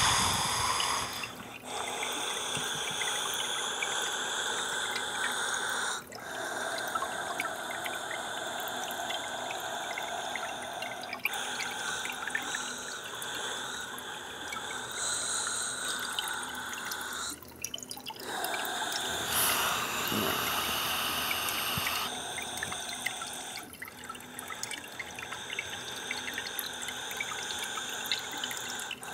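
Steady dripping, trickling water that changes abruptly every few seconds.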